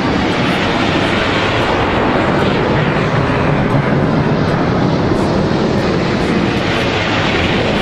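Blue Angels jet flying past overhead: a loud, steady jet engine noise with a faint falling whine in the middle as it passes.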